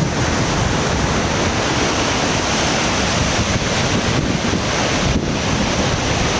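Steady rushing noise of a waterfall, mixed with wind buffeting the microphone.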